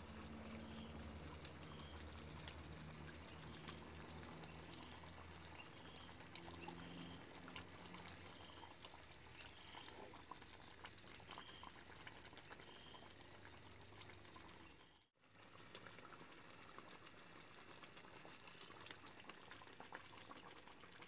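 Thick coconut-milk chicken stew simmering in a pan, bubbling and popping faintly and steadily. A low hum runs under it for the first several seconds, then fades.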